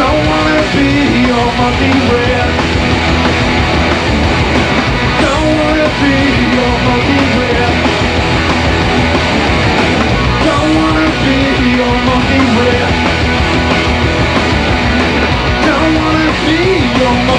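A live rock band playing loud, distorted punk-rock: electric guitars, bass guitar and drums, with a melodic riff repeating every few seconds.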